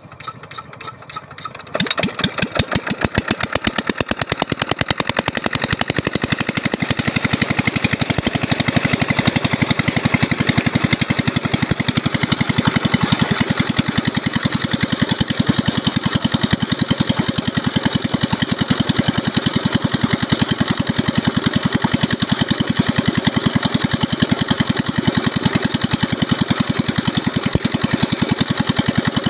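Old 12-horsepower single-cylinder diesel engine turning over with a few slow, faint strokes, then catching about two seconds in and running steadily with a rapid, even knocking beat as it drives an irrigation water pump. Water gushes from the pump outlet under the engine note.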